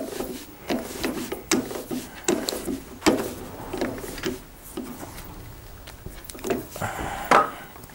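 Irregular metallic clicks and clinks of tommy bars working in the holes of a multi-collet lathe chuck, winding the collet closed onto a test bar.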